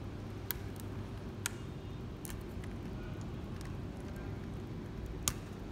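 Small plastic parts of an RC helicopter's tail assembly clicking as they are handled: four short sharp clicks, the loudest near the end, over a steady low hum.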